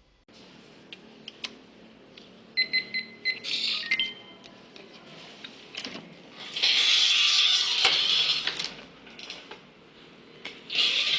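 A few short electronic beeps, about three in quick succession and then one more, followed by bursts of steady hiss.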